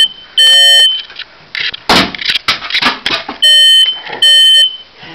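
Smoke alarm sounding in loud, shrill beeps about half a second long, sounding only while its test button is held down: one right at the start, then two more close together about three and a half seconds in. Between them there is a thump and some rustling.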